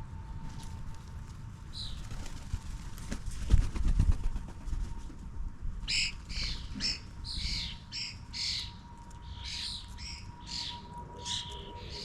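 Garden birds chirping: a rapid run of short chirps from about six seconds in, over a low rumble that swells around four seconds in. A faint steady tone hums underneath.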